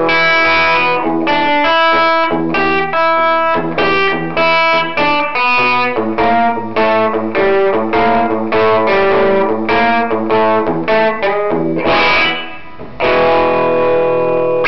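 Gibson Les Paul electric guitar played through a DeArmond R15T tube amp with two 6V6 power tubes and a 12-inch speaker, with the amp's tremolo switched on: choppy chords and short runs of notes. About twelve seconds in the playing dips briefly, then a single chord is struck and held ringing.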